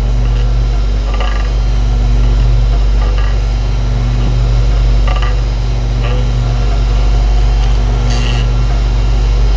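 A steady low electric hum from a running machine, with a few faint short clicks over it.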